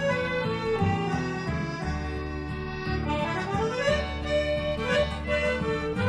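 Instrumental break of an old-time string band tune, the accordion carrying the melody over steady upright bass notes, with a few notes sliding up.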